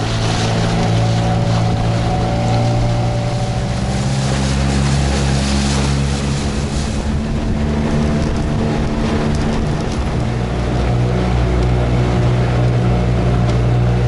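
Motorboat engine running steadily under way, with wind and water rushing past.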